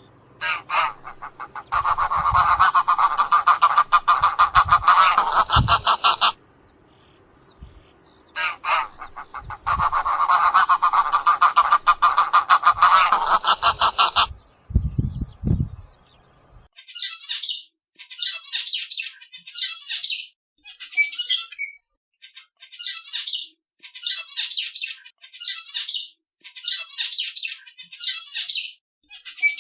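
A flock of wild geese honking in a loud, dense chorus with a few low thumps, broken by a short pause. About halfway through it cuts off and zebra finches take over, chirping in short high bursts roughly once a second.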